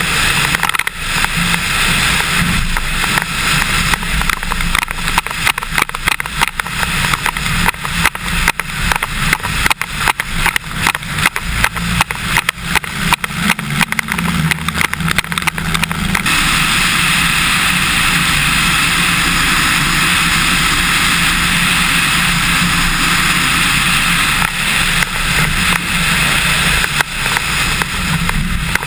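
Cessna 150's four-cylinder Continental O-200 engine and propeller running as the plane rolls along the runway, heard from a camera under the wing, with crosswind gusts buffeting the microphone. About 16 seconds in the choppy buffeting gives way to a steadier, fuller rush of engine and wind.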